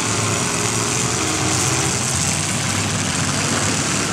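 Engines of several demolition derby cars running and revving together as they push against each other, a dense, steady mix of engine noise with pitches wandering up and down and no single crash standing out.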